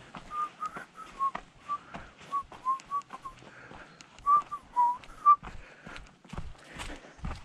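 A person whistling a short tune of about fifteen quick notes, some slurring down in pitch, which stops about five seconds in, with footsteps underneath.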